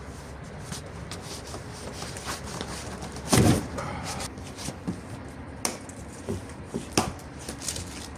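Handling a large cardboard shipping box and cutting its plastic strapping: one loud thump about three and a half seconds in, then scattered sharp clicks and snaps.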